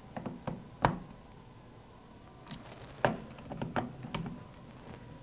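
Torque screwdriver with a hex bit working the screws of steel scope rings: a scattered series of short, sharp clicks and ticks at an uneven pace.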